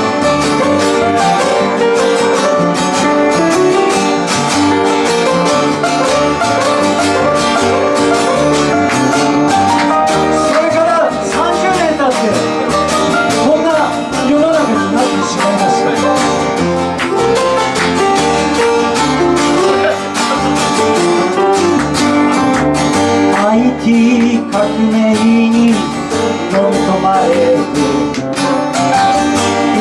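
Music led by plucked guitar, playing steadily at a loud level.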